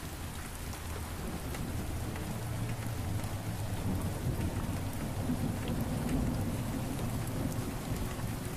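Steady rain with low thunder rumbling, swelling through the middle and easing off near the end.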